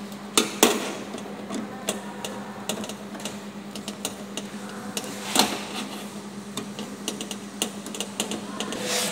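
Irregular small metallic clicks and taps of a screwdriver and wire ends against an air conditioner outdoor unit's terminal block and sheet-metal casing, as the power cable's terminal screws are tightened so the connections are not loose. The sharpest clicks come just after the start and about halfway through, over a steady low hum.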